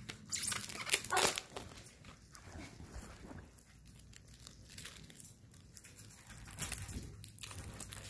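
Cellophane shrink-wrap crinkling and plastic CD jewel cases clicking as they are handled, in bursts during the first second or so and again near the end.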